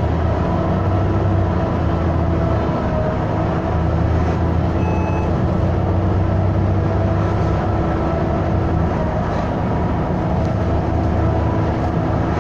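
Volvo B7TL double-decker bus running under way, heard from on board: a steady engine drone with a loud, steady whine from its engine cooling fan over it.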